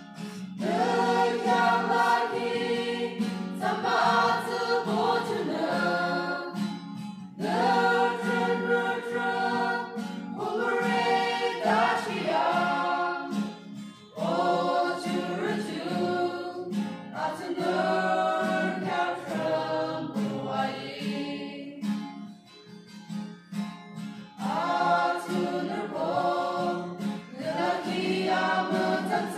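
Mixed youth choir singing a gospel hymn together, line by line with short breaks between phrases, accompanied by an acoustic guitar.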